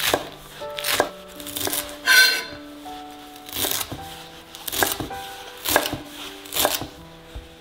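Kitchen knife chopping spring onions and then coriander on a wooden cutting board, single cuts landing about once a second, each a sharp knock on the board.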